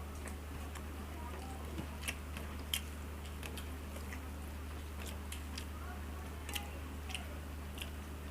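Close-miked chewing and mouth sounds of someone eating mutton curry with rice, with scattered sharp lip-smacking clicks, over a steady low hum.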